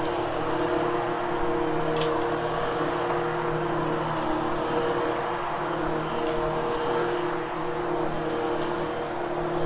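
Vacuum cleaner running steadily over carpet with an even motor hum and airflow noise, grooming the freshly cleaned and lifted pile.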